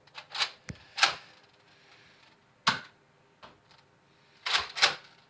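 A handful of sharp clicks and knocks, about six, spaced irregularly, with two close pairs in the first second and a pair near the end.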